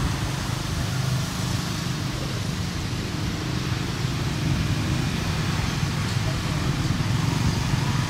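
Motorbike traffic passing on a road: a steady, low engine drone.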